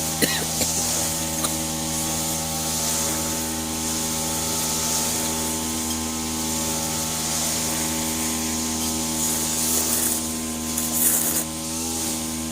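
A steady machine hum with several pitches at once, under an even hiss.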